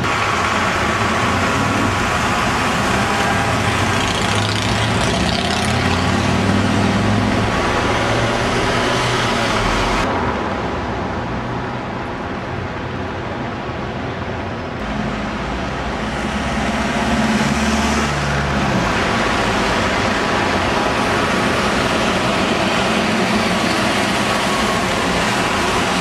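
Busy street traffic with double-decker buses' diesel engines running and pulling past over steady road noise. For a stretch in the middle the sound turns quieter and duller, then comes back up.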